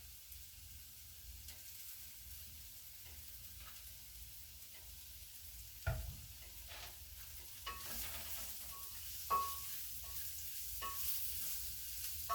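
Food sizzling in hot oil in a pan while a metal spoon stirs, with a few sharp clanks of the spoon against the pan, some of them ringing briefly. The sizzle grows louder in the second half.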